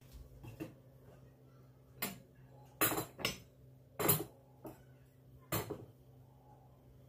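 Dishes and cutlery being handled in a kitchen: about seven sharp clinks and knocks at uneven intervals, as pieces are set down or moved.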